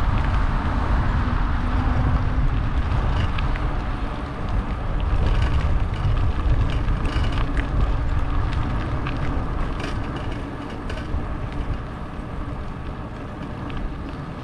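Wind rushing over the microphone of a bike-mounted camera, with tyre rumble on asphalt, as a Pedego electric bike rolls along a paved path. The noise is strongest in the first few seconds and eases somewhat after about ten seconds.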